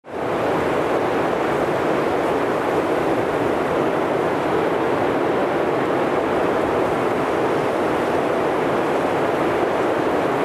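A steady, even rushing noise that starts abruptly and holds level, with no speech or music.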